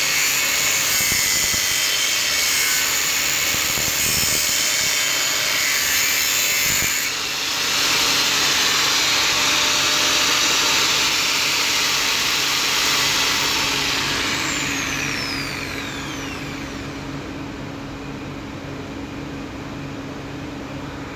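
Stanley angle grinder with an abrasive cutting disc cutting through a steel bar, a loud, steady grinding. About 14 seconds in it is switched off and the motor winds down with a falling whine, leaving a steady low hum and hiss.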